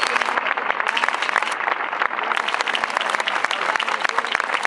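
A large crowd applauding, dense steady clapping that follows the end of a speech.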